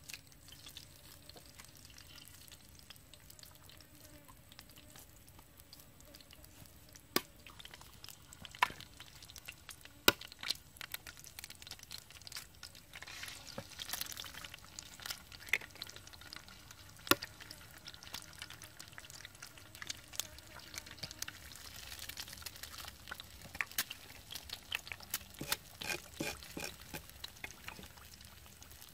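Eggs frying and sizzling in a clay pan over a wood fire, the hiss swelling now and then. A few sharp cracks are scattered through as eggs are broken on the pan's rim.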